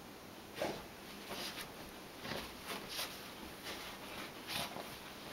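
A beagle rubbing and burrowing in a pile of blankets to dry himself after a bath: faint, scattered rustling of fabric and soft scuffles, several short bursts a second or so apart.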